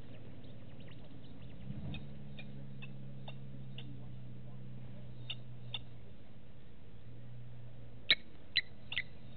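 Short, scattered bird chirps over a steady low hum, with three sharper, louder chirps close together near the end.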